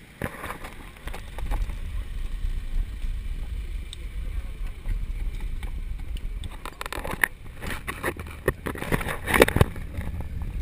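Wind rumble on a bicycle-mounted action camera's microphone while riding, with a run of rattles and knocks from the bike and mount in the second half.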